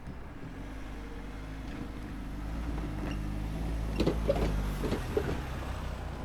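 A road vehicle's engine hum grows louder as it drives over a railway level crossing. A few sharp thumps come about four to five seconds in as its wheels go over the rails.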